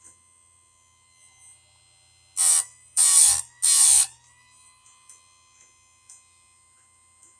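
Electric chainsaw chain sharpener with its motor whining steadily while the grinding wheel is brought onto the chain's cutter teeth three times in quick succession, each a short harsh grind. The motor's pitch sags after the last grind and recovers. Light clicks fall in between.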